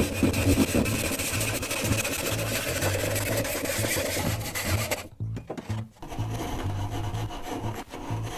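Brass-backed hand saw sawing through a wooden piece for about five seconds. After a short break, a lighter scraping of a gouge paring the wood.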